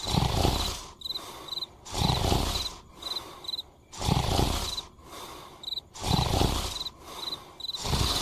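Cartoon snoring: a loud rumbling snore about every two seconds, with softer breaths between. Crickets chirp in short paired pulses throughout.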